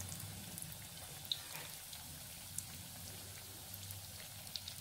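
Potato-stuffed bread rolls deep-frying in hot oil in a kadai: a steady sizzle of bubbling oil with scattered small crackles and pops.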